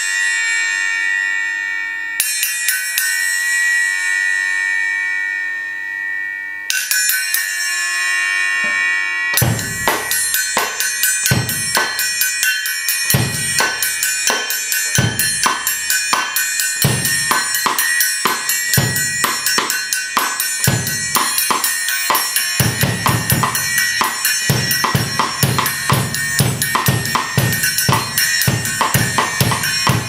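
A Paiste 2002 6-inch accent cymbal is struck twice, about 2 and 7 seconds in, each time ringing on in a bright, bell-like tone. About nine seconds in, a drum kit groove with bass drum and snare starts up, and the accent cymbal's ring carries on through it. The groove grows busier from about 22 seconds in.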